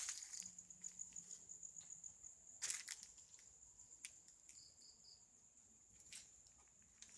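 Night insects, likely crickets, keeping up a steady high-pitched trill, faint overall. Two louder scuffs or crunches, at the very start and about three seconds in, with a lighter one near the end, from footsteps on the ground.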